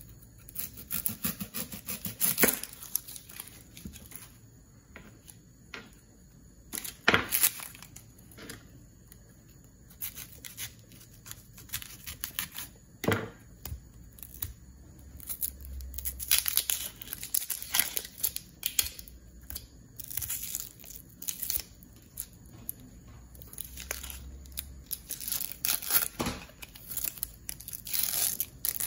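Dry papery skin of a brown onion being peeled off by hand, with irregular crackling and tearing, and a few sharper clicks and knocks among them.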